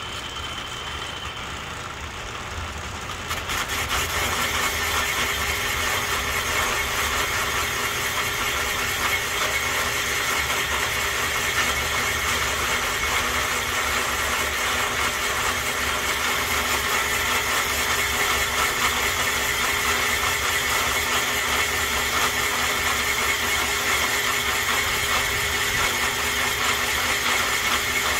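Portable cylinder boring bar running and cutting a cylinder bore in a 327 small-block Chevy block: a steady machine sound with a high-pitched whine over a metallic hiss. It gets louder about three and a half seconds in, then holds steady.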